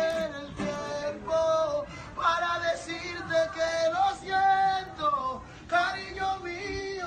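A man singing in short phrases, accompanied by a strummed acoustic guitar.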